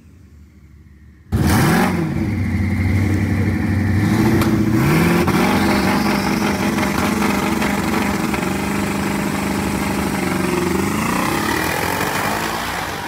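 Twin-turbocharged Coyote 5.0 V8 of a 2019 Mustang GT running loud at the drag strip starting line, starting abruptly about a second in. The revs dip and rise at first, then hold steady on the trans brake and two-step, and change as the car launches near the end.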